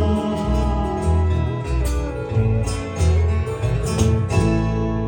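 Country band of guitars and lap steel playing the closing instrumental bars of a song, strummed chords over pulsing low notes, then landing on a final chord about four seconds in that rings on and slowly fades.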